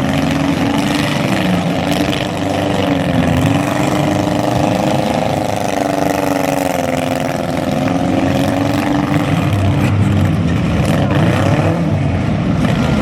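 Compact demolition-derby cars' engines running and revving, their pitch rising and falling over several seconds.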